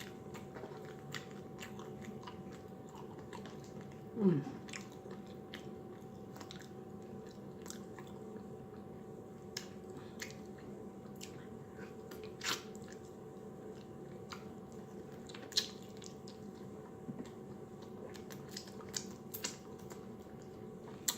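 Close-miked eating: biting and chewing food with scattered wet mouth clicks and small crunches. About four seconds in comes a short voiced sound falling in pitch, the loudest moment.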